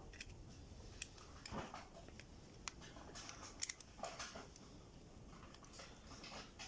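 Faint, scattered small clicks and light rustling as a piston ring is worked onto a chainsaw piston with a piston ring tool.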